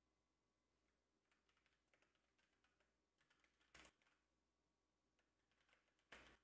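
Faint typing on a computer keyboard: quick runs of keystrokes, with one louder stroke a little before four seconds in.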